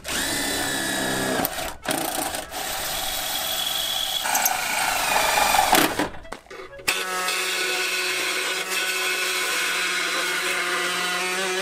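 Handheld power tools at work on a car door. First a tool whirs with a high whine, cutting out briefly twice. After a short gap, a pneumatic tool on an air hose runs with a steady hum.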